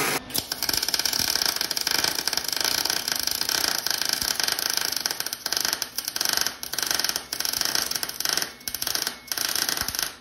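MIG welding arc crackling on steel, run with 0.023-inch solid wire under 75/25 shielding gas, with a few brief breaks in the arc in the second half.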